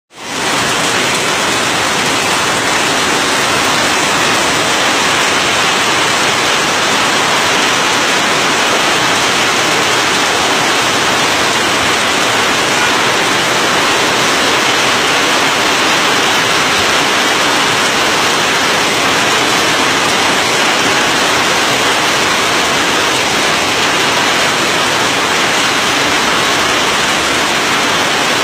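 Heavy monsoon downpour with rushing floodwater: a loud, steady hiss of rain and running water.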